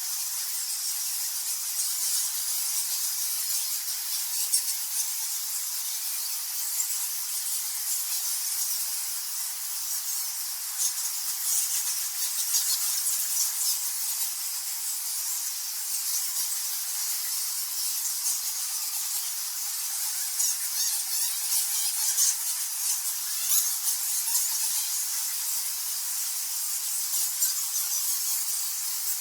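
Thousands of nectar bats squeaking and chittering together: a dense, steady, high-pitched chorus of overlapping squeaks that sounds almost like a hiss, with sharper individual squeaks standing out here and there.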